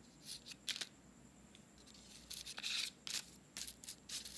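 Felt-tip marker drawing strokes on paper: a series of short, scratchy swipes, the longest about halfway through.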